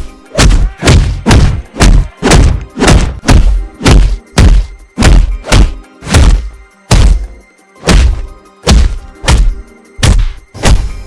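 Designed fight sound effects of the anime-combat kind: a fast series of punch and hit impacts, about two a second, each a sharp whack with a deep thud.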